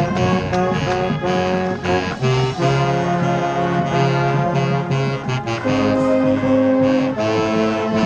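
Marching band playing, brass and woodwinds sounding full held chords that change every second or so, heard from among the players with a saxophone close by.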